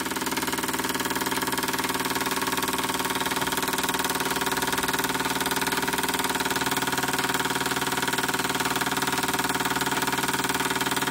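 Retrol SE-02 horizontal model steam engine running steadily under steam with a fast, even beat. It drives a belt-driven OKMO P71 mini water pump.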